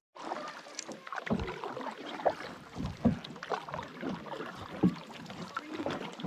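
Canoe paddling close by: irregular splashes and drips of water from the paddle blade, with a few sharper knocks and splashes standing out every second or so.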